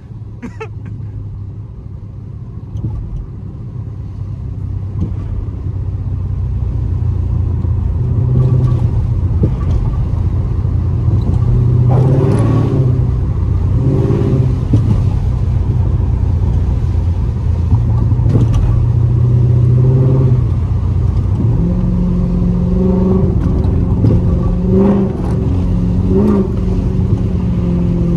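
Dodge Charger's swapped-in 392 (6.4-litre) HEMI V8 running under way, growing louder over the first several seconds and then holding a steady drone. Its pitch steps up about three-quarters of the way through.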